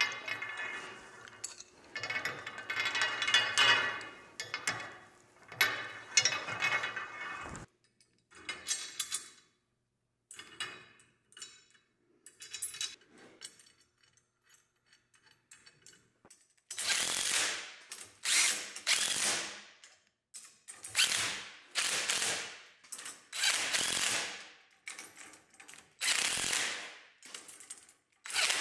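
Steel dethatcher tines scraping as they are slid along a steel tine bar, then, after a cut, a socket ratchet wrench tightening the tine bolts: a run of about ten ratcheting strokes, roughly one a second, in the second half.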